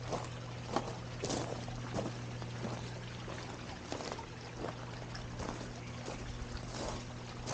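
Footsteps at a steady walking pace, a little more than one a second, over a steady low hum.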